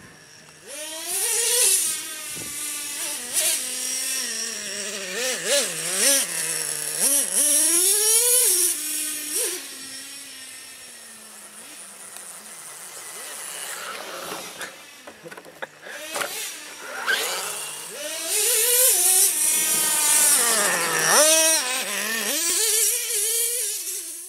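Radio-controlled monster truck's motor revving up and down over and over as it is driven, its pitch sweeping high and low, with a quieter stretch around the middle.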